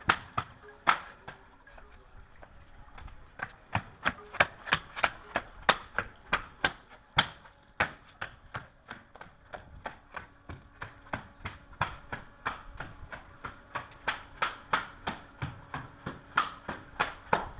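Plastic swim fins slapping flat on stone paving as a child walks in them, a steady run of sharp slaps about three a second, with a short pause near the start.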